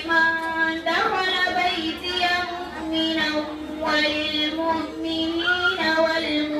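A girl chanting Quran recitation in the melodic tajweed style, drawing out long held notes with pitch slides, in phrases with short breaks for breath.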